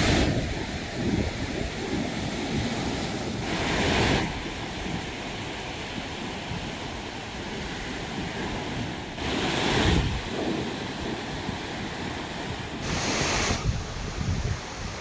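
Surf breaking and washing up a sandy beach, swelling every few seconds, with wind rumbling on the microphone.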